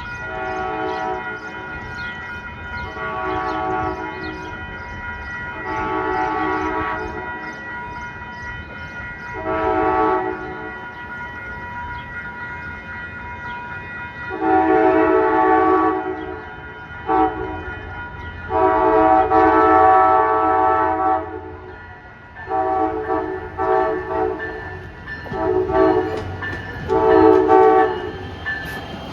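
Amtrak locomotive air horn sounding a chord in a string of blasts. Softer shorter toots come first, then two long loud blasts, then a quick run of short toots near the end. Beneath them is the low rumble of the train.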